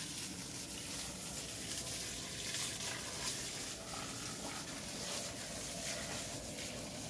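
Steady hiss of water spraying from a garden hose.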